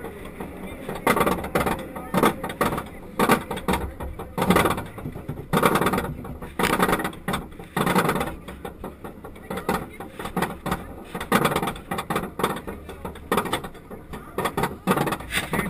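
Steel roller coaster climbing its chain lift hill: irregular metallic clanking and rattling, about one or two bursts a second, over a low rumble.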